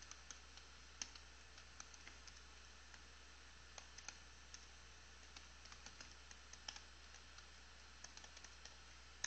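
Faint typing on a computer keyboard: quick irregular keystrokes, a few at a time with short pauses, as a line of Java code is entered.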